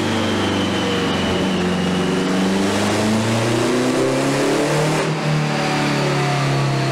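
BMW K100's four-cylinder engine running on a chassis dyno with the rear wheel turning the roller: the revs drop, climb again over a couple of seconds, dip briefly about five seconds in, then hold steady.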